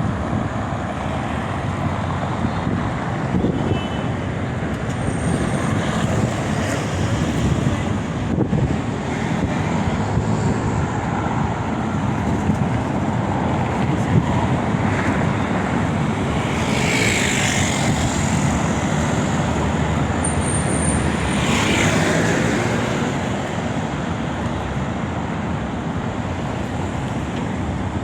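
Steady road traffic on a busy city avenue, a dense mix of engines and tyres, with two louder vehicles going by a little past the middle.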